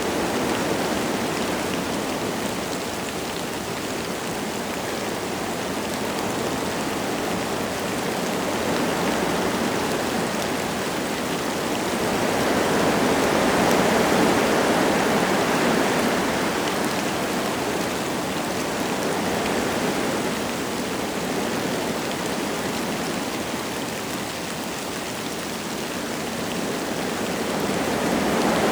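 Wind gusting through forest trees, a steady rush that swells and eases in slow waves, strongest about halfway through and rising again near the end, with light rain falling.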